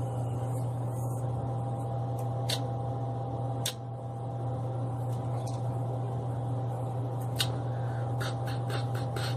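Steady electric motor hum with a low drone and a couple of steady tones. A few sharp clicks sound through it, with a quick run of about five clicks near the end.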